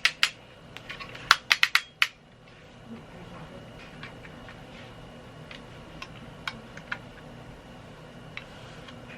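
Ratcheting plastic joints of a Transformers action figure clicking as its hands and fingers are posed: a quick run of sharp clicks in the first two seconds, then a few scattered single clicks.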